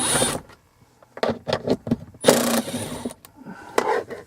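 A cordless impact driver runs in two short bursts, once at the start and again for about a second near the middle, backing out dash panel screws. Light clicks and knocks of parts being handled come in between.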